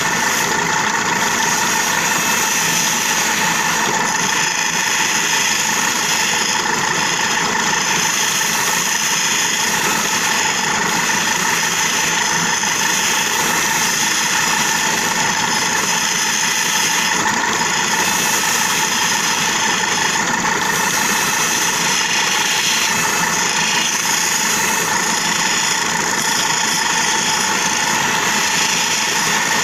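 Motor-driven lapidary polishing wheel running steadily while a turquoise stone is held against its rim for the finishing polish.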